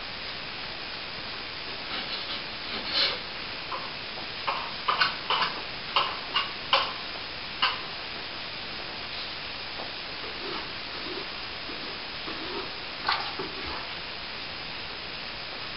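Short scrapes and taps of a plasterer's hand tools working fresh plaster, several in quick succession a few seconds in and a couple more near the end, over a steady hiss.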